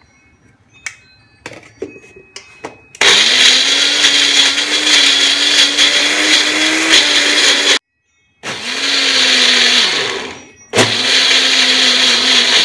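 Electric mixer grinder (mixie) grinding onion, fresh coconut, ginger and garlic with a little water into a wet masala paste, run in three bursts of a few seconds, winding down between them. A few light knocks come before the motor first starts, about three seconds in.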